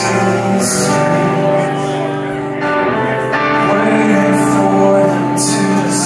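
Rock band playing live through a PA, with amplified electric guitars holding sustained notes and chords, and drums with cymbal crashes now and then.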